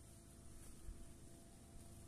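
Near silence with the faint, steady low rumble of a distant train.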